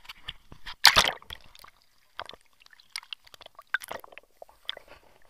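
Water splashing as a camera plunges below the sea surface: a sharp click, then a loud splash about a second in, followed by scattered muffled clicks and knocks heard underwater.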